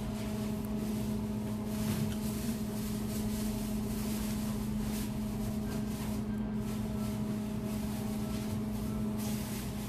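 Steady mechanical hum of an indoor appliance, with a constant low tone and a few faint clicks over it.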